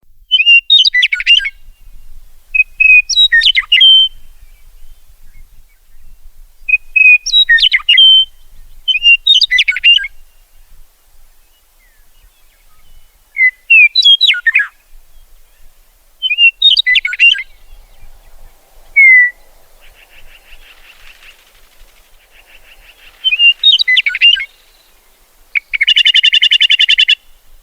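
Meadowlark singing short, fluty, warbled song phrases repeated every few seconds. Buzzy chattering notes come in late on, and it ends with a loud, harsh buzzy rattle.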